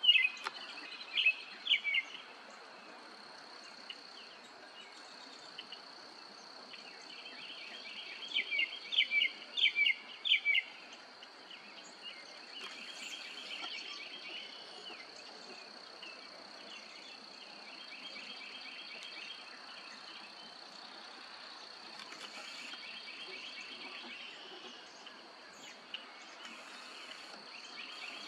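Outdoor wildlife chorus: a steady high-pitched drone with repeated bursts of shrill, rapidly pulsed chirping calls, loudest near the start and again about eight to ten seconds in.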